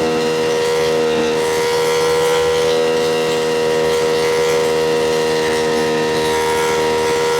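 Ducati Panigale V2's V-twin engine running at steady high revs under way, a constant drone that holds nearly the same pitch throughout.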